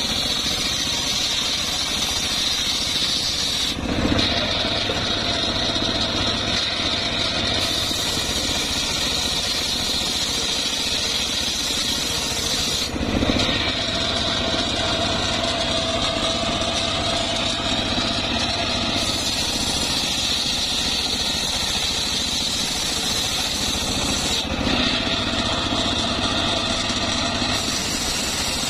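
Homemade table circular saw running and ripping trembesi (rain tree) wood, the blade whining steadily through the cut over a low hum from its drive. There are brief louder moments about four seconds in and near the middle.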